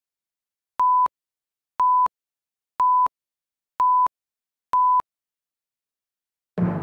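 Countdown beeps from a broadcast commercial slate: five short tone beeps of the same pitch, one a second, with silence between. Just before the end, orchestral music with a loud timpani hit comes in suddenly.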